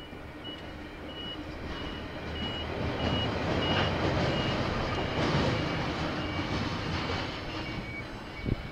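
A vehicle rumbling past, loudest in the middle, while a high electronic beep repeats about every two-thirds of a second.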